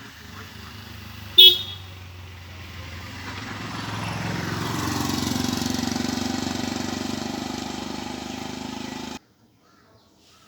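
Traffic: a motor vehicle's engine running and swelling louder as it passes close, with a single short high-pitched toot about a second and a half in. The sound cuts off suddenly about a second before the end.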